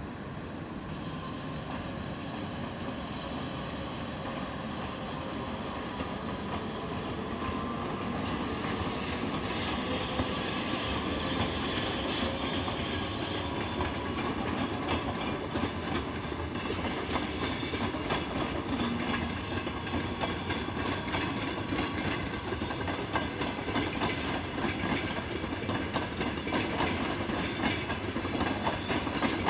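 ChS8 twin-section electric passenger locomotive passing with a train of passenger coaches. The running noise grows louder as the locomotive approaches and goes by, then the coaches' wheels click over the rail joints through the second half.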